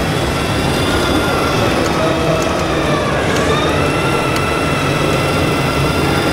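Radio-controlled Mercedes-Benz tipper truck model driving, its electric drive whining in several tones that dip in pitch about halfway and rise again, over a steady low rumble.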